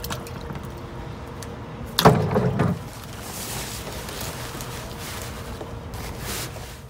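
A cast iron muffin pan going into a tub of lye solution, with a sudden thump and slosh about two seconds in, then a plastic tarp crinkling as it is spread over the tub.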